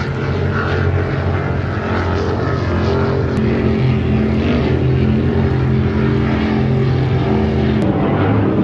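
Offshore racing powerboat engines running at high speed, a loud, steady low engine sound made of several pitches at once.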